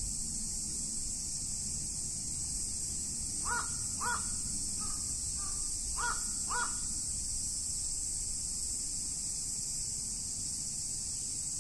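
A crow cawing: a pair of caws a little over three seconds in, two softer calls after, then another pair about six seconds in. Underneath runs a steady high-pitched hiss and a low rumble.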